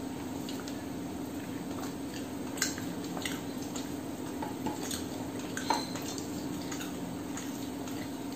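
Fingers picking at and mixing food on a steel plate: scattered light clicks and scrapes of fingertips and nails on the metal, with two sharper clinks about two and a half and five and a half seconds in, over a steady low hum.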